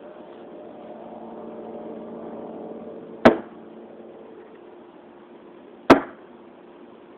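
Two thrown darts striking a dartboard target on a shed wall: two sharp impacts about two and a half seconds apart, over a faint steady hum.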